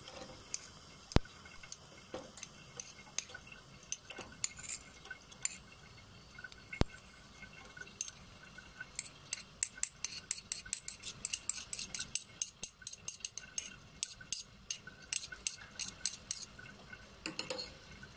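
Eating utensils clinking and tapping against dishes: a few separate sharp clicks at first, then a dense run of quick ticks through the second half.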